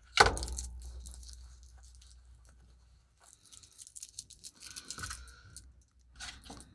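A sharp thump just after the start as the rubber watch strap is set down on the tabletop, fading out over a couple of seconds, then scattered crinkling of the thin clear protective film taken off the strap's buckle, in two spells.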